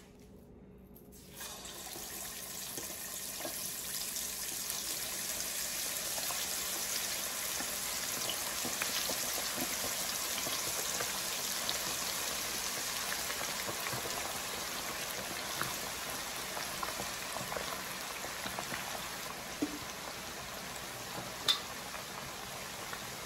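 Seasoned chicken wings frying in hot oil in a cast-iron Dutch oven: a dense, steady sizzle starts suddenly about a second and a half in as the first wings go in, and keeps going as more pieces are dropped into the pot. A few sharp pops near the end.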